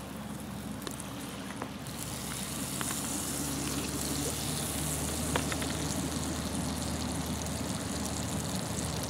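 Butter sizzling as it melts in a hot cast iron skillet, the sizzle building about two seconds in and then holding steady. A few faint clicks sound over it.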